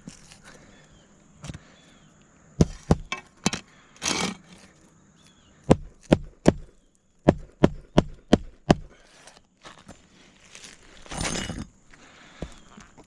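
Hammer driving roofing nails by hand through an asphalt shingle: four strikes about two and a half seconds in, then a run of about nine quick strikes, with short scraping rustles between.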